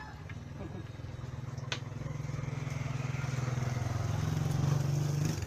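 A motorcycle engine running, growing steadily louder over about five seconds, then dropping off suddenly near the end. A single sharp click sounds about two seconds in.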